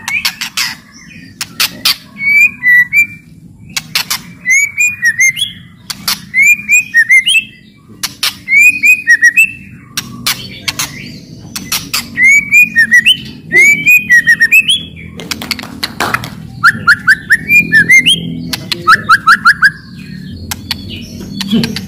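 White-rumped shama (murai batu) giving loud, harsh clicking 'cetrekan' calls again and again, broken by short whistled song phrases that slide up and down. Later come quick runs of four or five rising notes.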